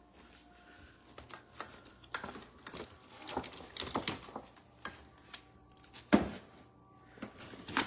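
Handling noise from a phone held against the ear and hair: scattered clicks and short rustles, with one sharp knock about six seconds in.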